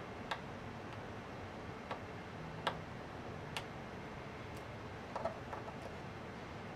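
A few light, irregular metal clicks and ticks as a small screwdriver works in the exposed dial mechanism of a Mitutoyo 510-105A indicating micrometer, nudging it toward zero, over a faint steady hiss.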